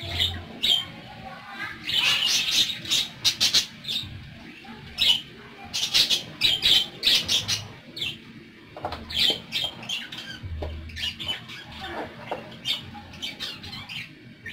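A flock of pet budgerigars (parakeets) chattering, a busy run of quick high chirps and squawks in clusters, thinning out a little after about nine seconds.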